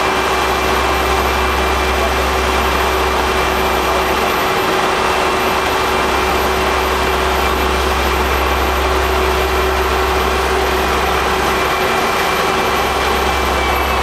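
Diesel engines of a Roadtec SB-2500 material transfer vehicle and a CAT 1055D asphalt paver running steadily as they convey and lay hot-mix asphalt: a continuous heavy machine drone with a constant hum.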